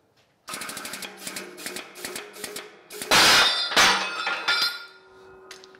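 Steel piston rod being forced out of a tapered stoker-engine piston on a hydraulic press: a fast run of sharp metallic clicks and creaks under load. About three seconds in, a loud bang and clatter as the rod breaks free and the cast piston is thrown onto the floor, followed by a second hit and a ringing metal tone that fades.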